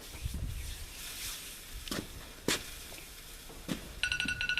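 A few scattered knocks and clicks, then near the end an electronic timer beeping, a quick run of high beeps for under a second.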